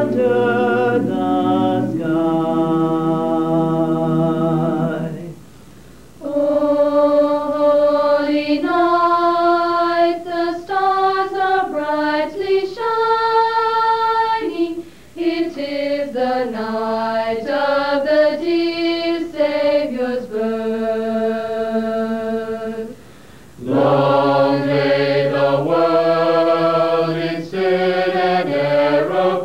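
Mixed a cappella choir singing in parts: held chords moving from note to note, with short pauses between phrases about six, fifteen and twenty-three seconds in.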